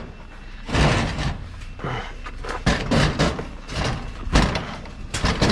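Scrap metal being handled and set onto a trailer: a string of irregular clanks and knocks, with a few louder bangs.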